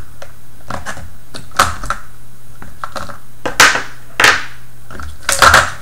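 A small metal screwdriver prying batteries out of the Scribbler 2 robot's plastic battery holder: a series of separate sharp clicks and snaps, the loudest a little past the middle and near the end.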